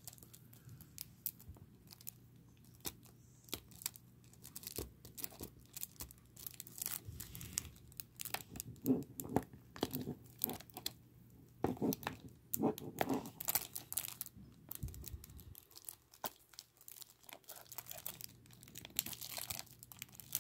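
Fingers picking at and crinkling the plastic shrink wrap on a Blu-ray case, with scattered small clicks and scratches. Two louder bouts of crinkling come a little past the middle.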